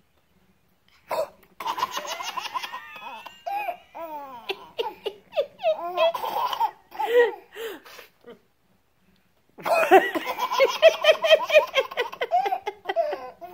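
A baby laughing in bursts of quick, rapidly repeated laughs, with a short pause about eight seconds in, then a long unbroken run of laughter near the end.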